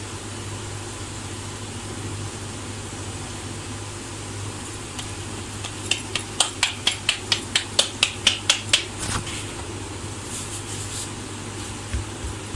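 Hands patting a potato-stuffed ball of wheat dough flat: a quick run of soft slaps, about four or five a second, for some three seconds midway, over a steady background hum.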